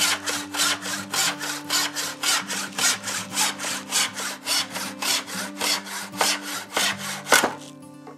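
A handsaw crosscutting a pallet-wood board, rasping back and forth at about three strokes a second. A single louder knock follows near the end as the sawing stops.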